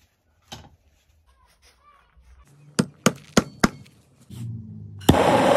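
Knocks from handling lead sheet and tools on a wooden workbench: one soft knock early, then four quick sharp knocks in a row about three seconds in, a short low rumble, and a loud hit near the end that starts a harsh, steady noise.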